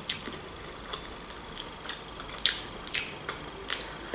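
Close-up eating sounds: bites and chewing on a crispy battered fried chicken wing, with a few sharp separate crunches, the loudest about two and a half seconds in.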